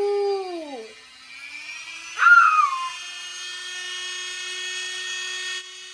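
High-speed rotary tool winding up to a steady high whine, used to trim a part so it clears the pan gasket. It runs for a few seconds and cuts off just before the end, with a short loud falling squeal about two seconds in.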